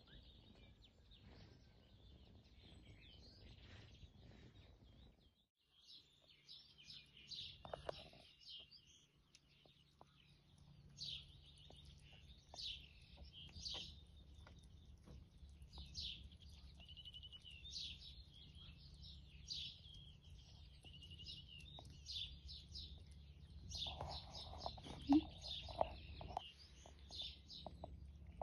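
Faint chirping of small birds, many short calls repeating from about six seconds in, with a few brief lower sounds near the end.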